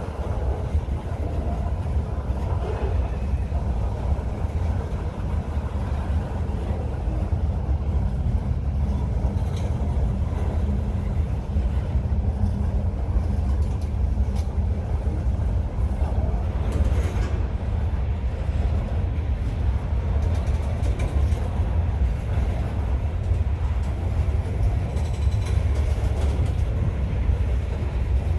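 Long freight train rolling past: a steady low rumble with a few clicks from the wheels.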